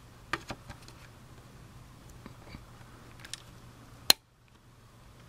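Small clicks and creaks of a screwdriver turning the cam lock screw on a laptop's CPU socket to unlock the processor, with one sharp, louder click about four seconds in.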